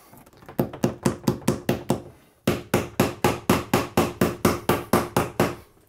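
Hammer tapping a cable staple into a wooden ceiling joist to fasten electrical cable: quick, even taps at about six or seven a second, in two runs with a short pause about two seconds in.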